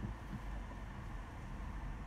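Steady low rumble of road and engine noise from a car being driven.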